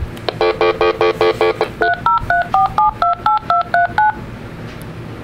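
Mobile flip phone keypad tones as a number is dialed: a quick run of about seven beeps, then about ten two-note touch-tone digits, stopping about four seconds in.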